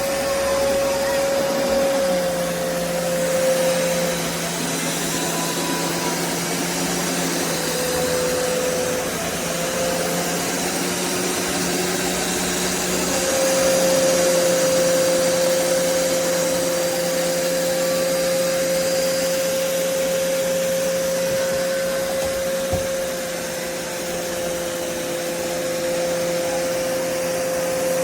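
BISSELL Revolution HydroSteam Pet upright carpet cleaner running, its suction motor giving a steady rushing whine with a held mid-pitched tone.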